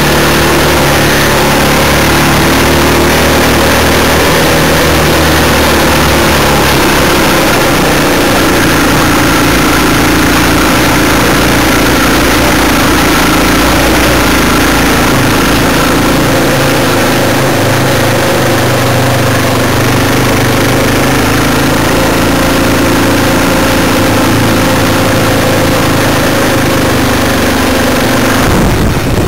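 Trail motorcycle engine running at low revs as it is ridden slowly along a rough lane, its note rising and falling a few times with the throttle.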